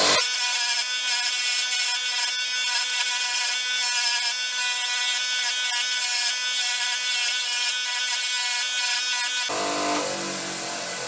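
Bench grinder running with a hardened-steel lathe chuck jaw, annealed to soften it, held against the wheel: a steady grinding whine that eases off near the end.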